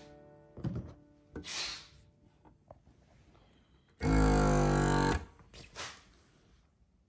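A loud burst of music lasting about a second, starting abruptly about four seconds in, after a few faint short noises.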